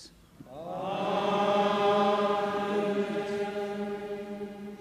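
A congregation singing a long, held 'Amen' in response to the chanted Latin final blessing of the Mass. It swells in over the first second and fades slightly near the end.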